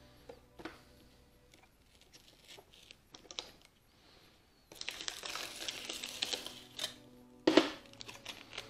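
Aluminum foil tape being handled: a few small clicks, then about two seconds of crinkling and rustling as a strip is peeled and torn, and a sharp, louder crackle near the end.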